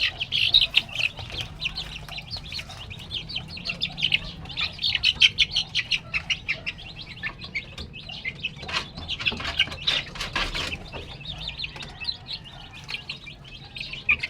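Chickens eating feed: a dense, rapid patter of pecks with short chirps mixed in, busiest in two spells, one in the first half and one about two-thirds of the way through.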